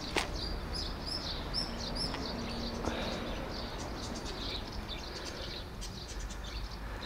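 Small birds chirping: a short arched chirp repeated several times in quick succession in the first two seconds, then scattered chirps, over a steady low outdoor rumble. A single click sounds just after the start.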